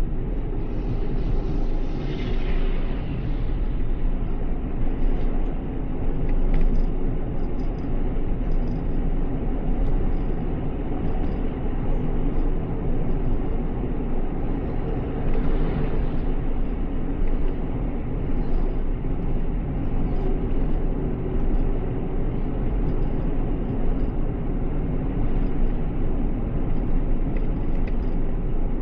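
Steady road and engine rumble heard from inside a moving car, with two brief swells of hiss, one about two seconds in and one around the middle.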